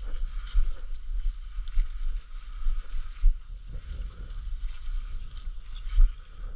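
Walking through tall dry grass with a body-worn camera: irregular low thumps of footfalls and camera jostle over a steady rustling hiss, the loudest thump about six seconds in.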